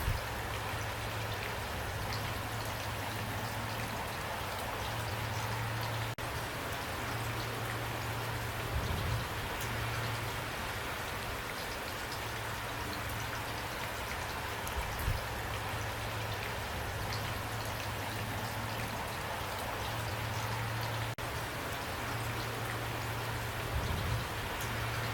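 Steady rain falling: a dense, even patter of drops, with a low hum underneath and a few soft thuds.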